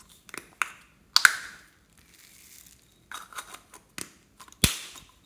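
Thin clear plastic cup crinkling and clicking in a series of sharp crackles as fingers squeeze and flex it to shake foam beads out. The loudest snaps come about a second in and near the end.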